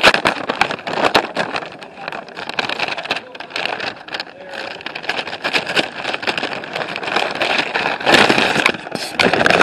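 Paper and plastic packaging being rustled, crinkled and torn open by hand right against the microphone, a dense irregular crackle that grows louder about eight seconds in.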